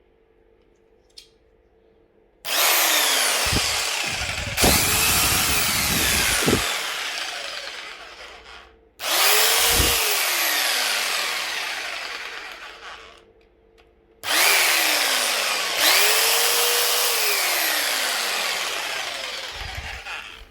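Bosch PST 700 E compact jigsaw running in three long bursts, its motor speed sweeping up and down within each burst.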